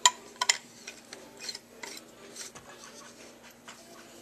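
Brass valve and copper pipe pieces clinking and scraping as they are handled: a sharp metallic clink at the start, two more about half a second in, then lighter taps and rubbing.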